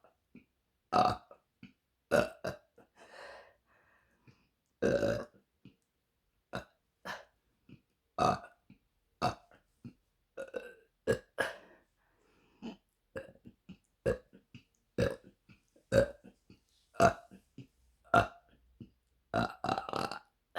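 A woman burping over and over, a short belch roughly every second with brief silences between, and one longer drawn-out burp about five seconds in.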